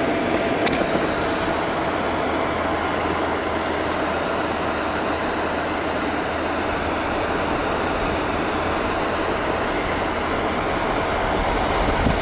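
Steady road and engine noise of a vehicle driving along, with an even low hum.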